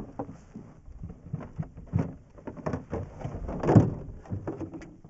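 Irregular knocks and clatter of gear and feet against the hull of an aluminium jon boat, with a heavier bump a little under four seconds in.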